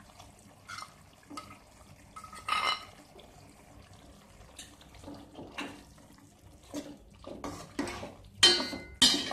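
Yogurt-and-biryani-masala paste being scraped into a pot of wet mutton curry, then a ladle stirring it in, with wet squelching and knocks and scrapes against the pot. The knocks are sparse at first, then come quicker and louder toward the end.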